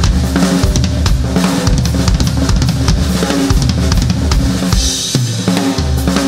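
Live band in an instrumental passage: a drum kit plays a steady beat with kick drum, snare and cymbals over bass guitar notes.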